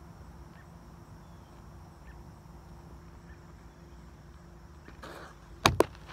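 Two sharp, loud smacks a split second apart, near the end, as a pitched baseball strikes something close to the microphone and rebounds. Behind them runs a steady insect drone.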